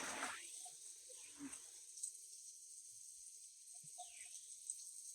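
Quiet outdoor ambience: a faint steady high-pitched hiss with a few faint short chirps.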